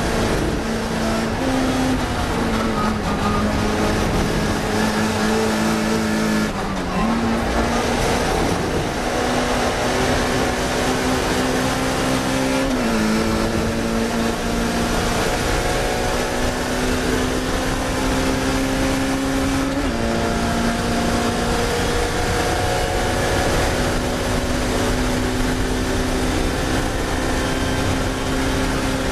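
Classic Mini race car's four-cylinder engine running hard at racing speed. Its pitch climbs slowly and drops sharply several times as the gears change.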